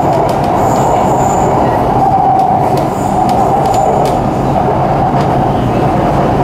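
Metro train running at speed, heard inside the carriage: a steady rumble of wheels on rail with a droning hum, and faint brief high-pitched whines about a second in and again near three seconds.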